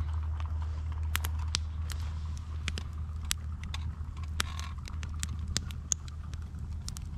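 Wood campfire crackling, with sharp pops at irregular intervals over a steady low rumble.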